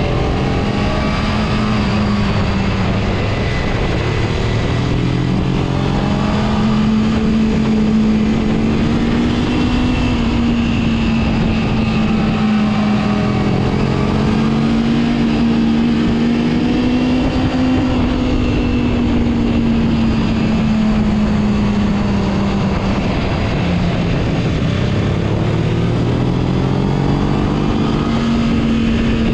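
Motorcycle engine heard from the rider's seat while carving through curves, its note rising and falling again and again with the throttle. A steady rush of wind and road noise runs underneath.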